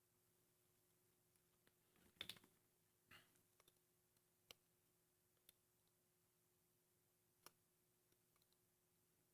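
Near silence with a few faint, scattered clicks and taps of a small screw and nut being handled and fitted on a circuit board. The loudest is a short cluster of clicks about two seconds in.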